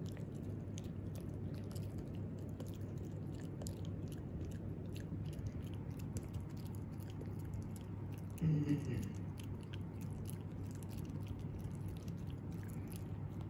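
Italian Greyhound puppy chewing a green dental chew held in a person's fingers: a run of small, sharp clicks and crunches of teeth on the chew. About eight and a half seconds in, a brief voice-like sound stands out as the loudest moment.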